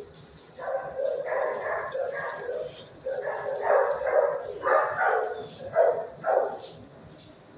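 Shelter dogs barking repeatedly in irregular runs, quieter for the last second or so.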